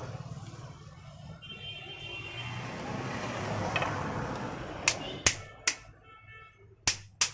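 Hand tools working on a rotary hammer's armature: a brief squeak and some scraping, then from about five seconds in a series of sharp metallic clicks as pliers are worked against the armature.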